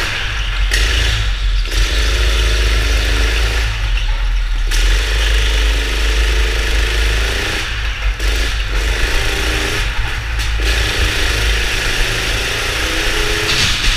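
Go-kart engine heard from on board, revving up along the straights and dropping off each time the throttle is lifted for a corner, several times over, with a steady low rumble underneath.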